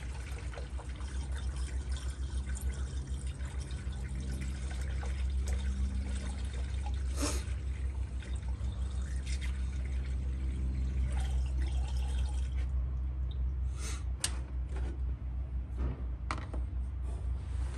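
Distilled water pouring from a plastic gallon jug through a funnel into a car's coolant reservoir. The pour stops about two-thirds of the way through, followed by a few sharp plastic clicks.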